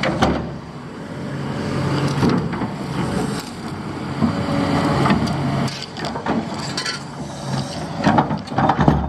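Excavator's diesel engine running under load, with a steady whine from the hydraulics at times and scattered clanks and knocks, which come thick and sharp about eight seconds in.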